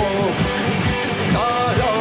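Rock band playing live: electric guitars and bass over a steady drum beat, with a lead line that slides between notes.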